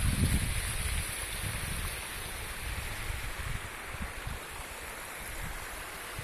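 Wind buffeting the microphone in low gusts for about the first second, easing off to a steady rushing hiss.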